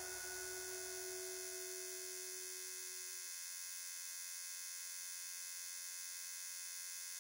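Steady electronic drone from a horror teaser's soundtrack: a low hum with a held tone that fades out about three seconds in, leaving a thin, high, steady buzz.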